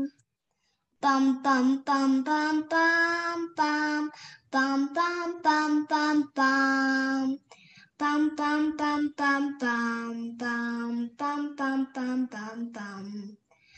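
A young girl humming the melody of her piano piece in short separate notes, phrase by phrase with brief pauses, the last phrase stepping lower.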